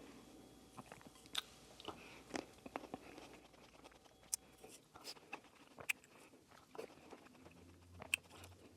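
Close-miked chewing of fresh fruit: faint wet mouth clicks and smacks, roughly one a second.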